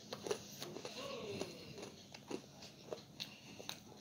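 A child chewing a sweet snack close to the microphone, with irregular small crunching clicks.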